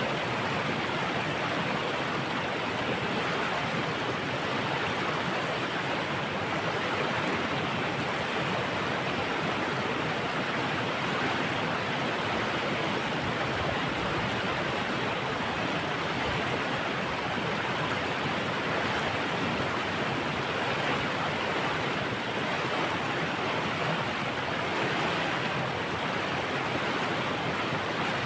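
Water pouring over a dam, a steady, even rushing that does not change.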